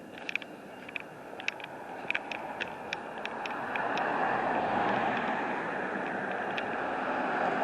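A road vehicle passing on the street: an even rushing noise that swells about three and a half seconds in and stays up. Short high chirps or ticks come in the first few seconds.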